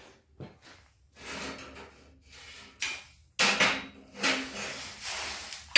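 Forged steel pieces being handled: irregular metal clinks and scrapes as they are picked up and set down, getting louder in the second half and ending in a sharp clank.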